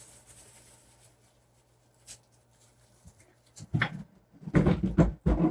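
Cardboard kit box being handled and opened: a few faint clicks and rustles, then louder rustling and scraping of cardboard and packaging in the last second and a half.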